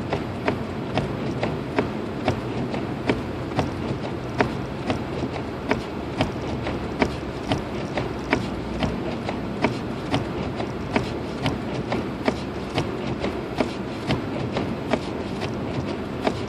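Hazard-light flasher ticking in an even rhythm, about two clicks a second, over the steady cabin hum of a Lexus IS250 AWD driving on a snowy road.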